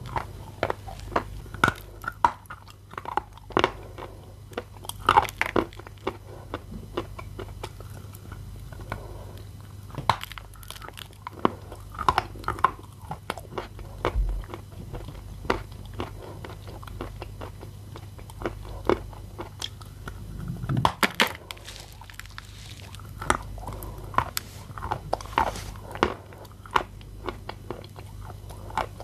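Someone biting and chewing soaked edible clay close to the microphone: a wet crunch of many sharp cracks, in clusters of quick bites with short pauses between.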